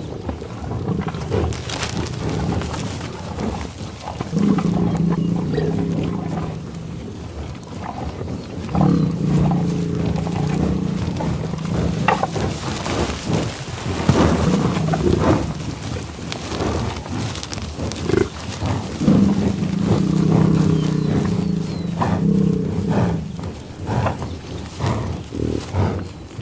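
American bison grunting: several long, low, drawn-out calls, each a few seconds long, with short gaps between them.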